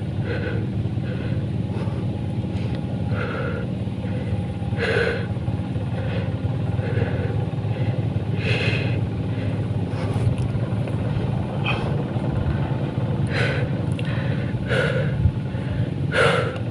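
A steady low engine rumble runs throughout. Every few seconds it is overlaid by short, heavy breaths, the strained breathing of a man straining to hold a line against a hard-pulling eel.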